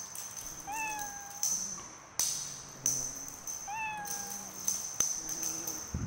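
Domestic cat meowing twice, each call a short rise held for about half a second. A few sharp taps come between the calls.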